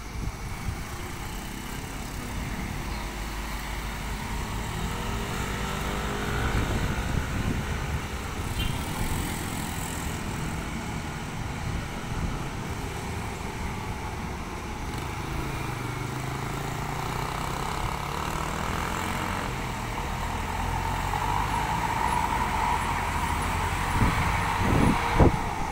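Mixed road traffic passing a hairpin bend: car, motorcycle and small truck engines coming and going, ending with a medium truck's diesel engine growing louder as it takes the bend. Wind buffets the microphone near the end.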